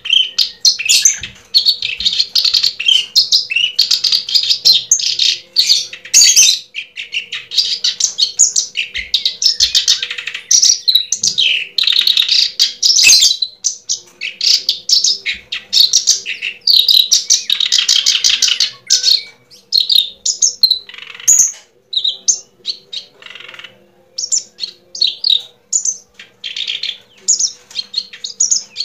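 Birds chirping rapidly and almost without pause, many short calls packed closely together, thinning out in the last third.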